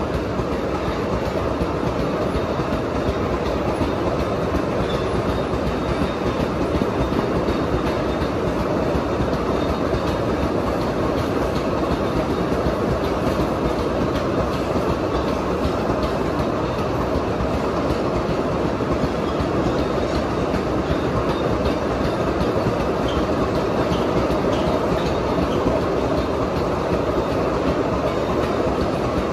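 Loaded sugarcane bins of a cane train rolling steadily past, steel wheels running on the rails.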